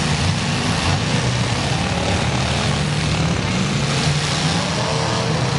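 Engines of several six- and eight-cylinder demolition derby cars running together in a loud, steady drone.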